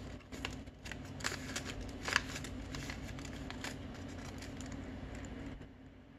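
Colored paper rustling and crackling as hands press and fold a glued paper cone, with a run of sharp crackles, the loudest about two seconds in. It quietens near the end.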